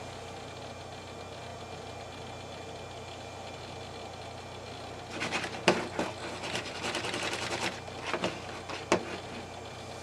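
Steady hum of a beige Power Mac G3 starting up into Mac OS 9. About halfway through come some four seconds of irregular clicking and chattering from its hard drive seeking as the system loads.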